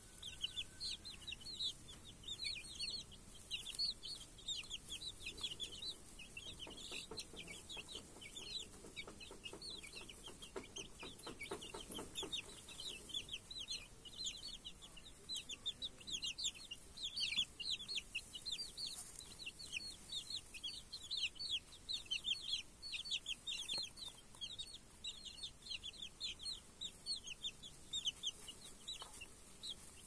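A brood of domestic chicks peeping continuously, many short high calls that each slide downward, overlapping one another. A hen clucks low and rapidly for a few seconds around the middle.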